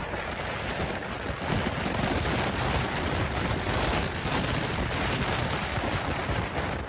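Steady rushing wind and road noise from a vehicle travelling at freeway speed: an even low rumble and hiss with no clear engine note standing out.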